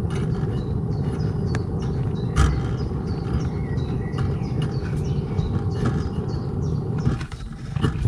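Gas burner of a Dometic RM 5380 absorption fridge running with a steady low rush, close up, while a finger covers its air inlet and starves the flame of air. Short high bird chirps sound over it, and the rush dips briefly near the end.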